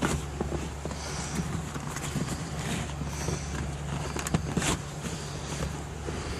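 Plastic interior trim panel being tugged and pried at its clips, giving scattered clicks and knocks, one sharper knock about four and a half seconds in, over a steady low hum. The panel is stuck on its clips and will not pop out.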